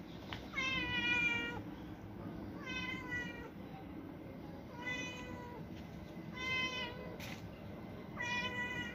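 Domestic cat meowing five times, about one and a half to two seconds apart; the first meow is the longest, about a second.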